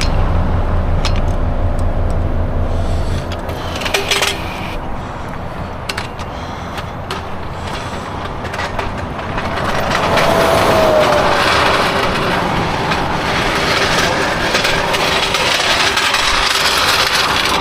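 Vehicle noise at the roadside: a low engine rumble at first, then a swell of passing traffic about ten seconds in, with scattered clicks and knocks from work on the tire.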